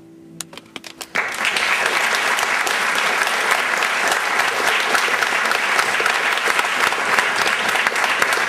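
The last acoustic guitar chord fades out as a few scattered claps start, and about a second in the audience breaks into steady, full applause.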